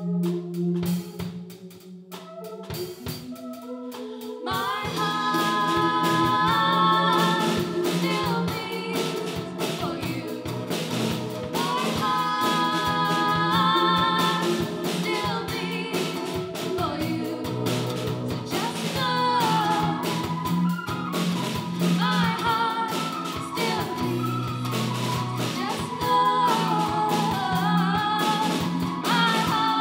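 Live band playing a song: a female lead vocal over acoustic guitar, a Nord Lead synthesizer keyboard and drum kit. The first few seconds are a quieter passage of held keyboard notes; the voice and full band come in about four seconds in.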